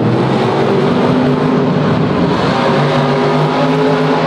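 Monster truck engines running hard as two trucks race around the track: a loud, continuous engine drone whose pitch shifts as they accelerate and ease off, dropping somewhat about three seconds in.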